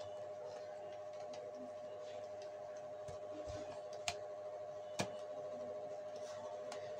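Light clicks and taps of a circuit board being handled and seated in its plastic PLC housing, with two sharper clicks about a second apart, over a faint steady hum.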